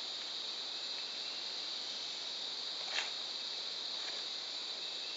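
Steady high-pitched chorus of night insects, with a single short click about three seconds in.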